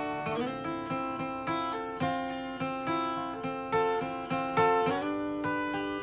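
Background music: an acoustic guitar playing plucked notes and chords, changing chord twice.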